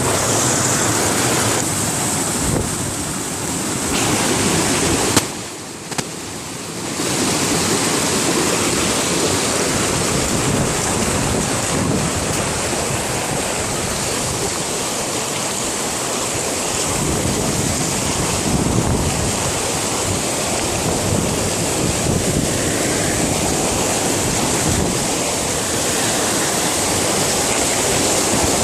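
Waterfall rushing: a steady, loud wash of falling water that drops away briefly about five seconds in.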